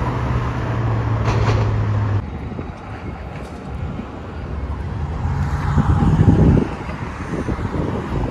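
Outdoor urban traffic noise with a low, steady engine drone that cuts off suddenly about two seconds in, then returns and grows louder between about five and six and a half seconds in.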